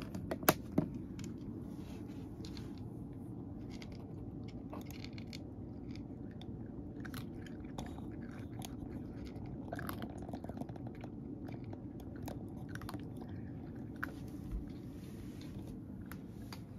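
A cat crunching dry kibble, with irregular small crunches throughout. A couple of sharper clicks sound in the first second.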